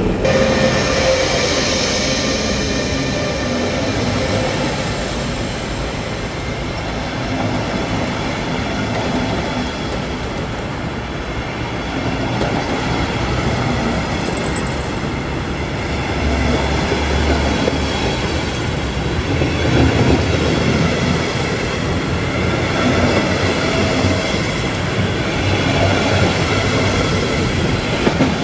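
Passenger coaches of a locomotive-hauled train rolling past close by: a continuous loud rumble and rattle of wheels on the rails.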